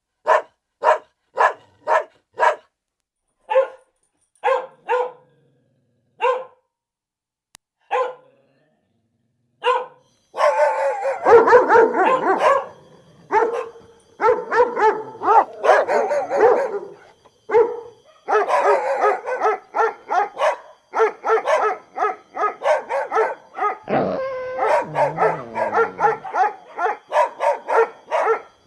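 Dog barking: single short barks at first, coming further and further apart, then from about ten seconds in a fast, nearly continuous run of barks.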